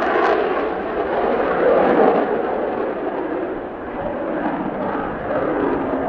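Twin J79 turbojet engines of an F-4EJ Kai Phantom at high power as the jet climbs away after a touch-and-go: a rough, rushing jet noise that swells about two seconds in and then eases a little.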